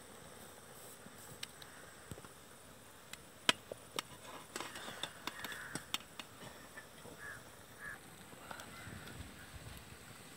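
Steel ladle clinking against an aluminium pot and a steel plate as boiled snake gourd pieces are lifted out: a few sharp, separate clinks, the loudest about three and a half seconds in.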